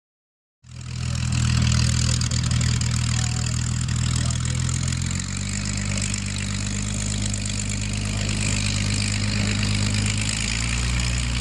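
Rolls-Royce Merlin V12 piston aero engine of a WWII fighter running steadily at low power, with a deep note that steps down about five seconds in and again near the end.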